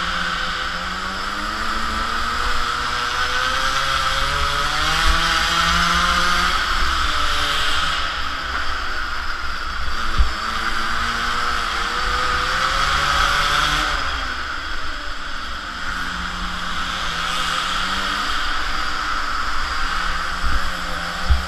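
A Polini mini moto's small two-stroke engine, heard onboard, revving up and dropping back again and again as the rider accelerates and backs off, with wind rumble on the microphone. A sharp knock comes about halfway through and another near the end.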